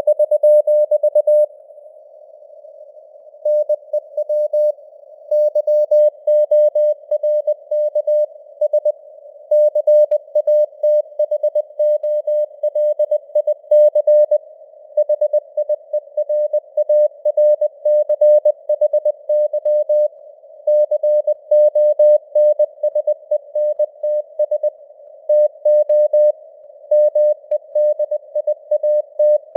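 Morse code (CW) sent at 20 words per minute: a single steady tone keyed on and off in dots and dashes, with short pauses between words. A faint band of simulated radio hiss sits around the tone, and the signal strength varies as simulated fading (QSB).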